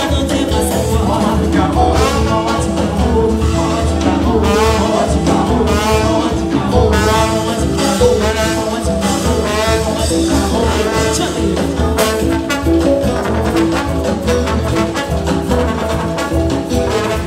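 Live dance-band music with brass and singing over a steady beat.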